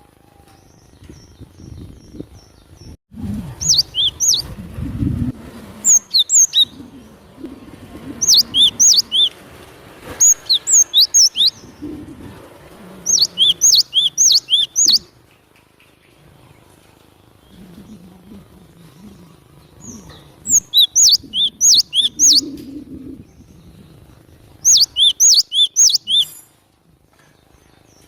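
Cinereous tit (glatik batu) singing loudly: quick runs of sharp, high chirping notes, repeated in bursts of one to three seconds with pauses between.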